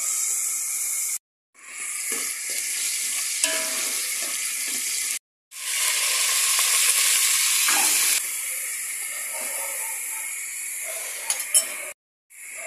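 Garlic and onion sizzling in hot oil in an aluminium pot, then diced pork frying; the sizzle is loudest for a few seconds after the pork goes in, about halfway through. Two short silent breaks interrupt it, and a few sharp clicks come near the end.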